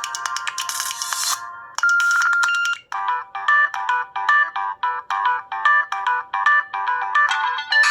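Samsung Galaxy S2 ringtones playing back to back. A busy electronic ringtone ends about a second and a half in, a short single held tone follows, and from about three seconds a new ringtone starts: a repeating pattern of short, bright melodic notes, about three to four a second.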